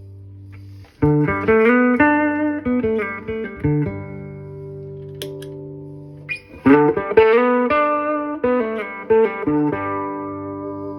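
Electric guitar played through a boost pedal into a solid-state Fender Studio 85 amplifier, giving a richer, fuller tone with a bit of breakup. Two short phrases of picked notes and chords, one starting about a second in and one about six seconds in, each left ringing.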